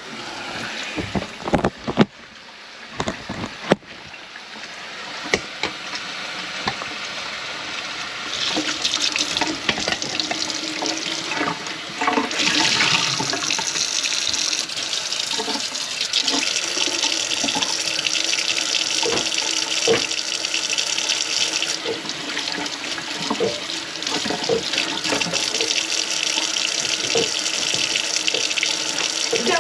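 A few sharp knocks and clatters, then a kitchen faucet running steadily into the sink from about eight seconds in. The tap is run to test the drain after a grease clog was cleared from the P-trap.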